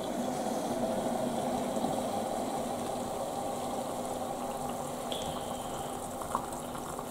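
Boiling water poured from an electric kettle into an instant-noodle cup: a steady, even splashing pour, easing a little toward the end.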